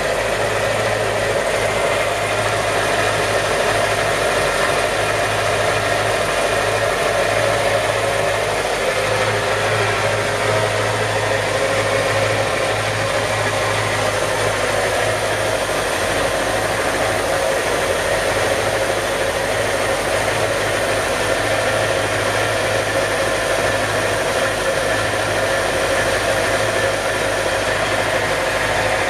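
Yamaha STR28 boat's inboard engine idling steadily, heard up close with the engine hatch open.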